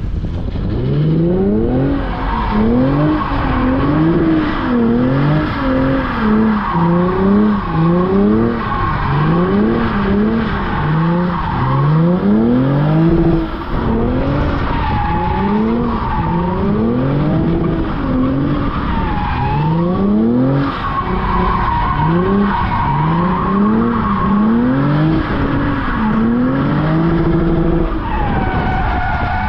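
2017 Lexus RC 350's 3.5-litre V6 revving up in repeated rising pulls and dropping back as the car is drifted in figure eights, with the tyres skidding and squealing on wet pavement.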